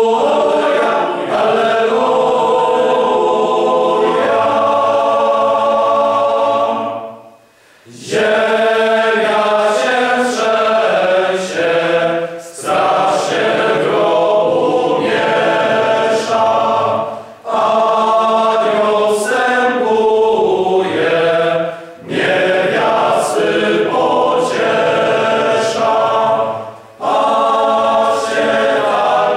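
Male choir singing a Polish Easter hymn a cappella in three-part harmony, phrase by phrase. It breaks off for a short pause about seven seconds in, with brief breaths between the later phrases.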